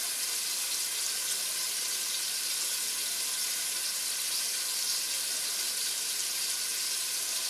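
Flour-dredged chicken breasts frying in olive oil in a stainless pan on a gas burner: a steady sizzle.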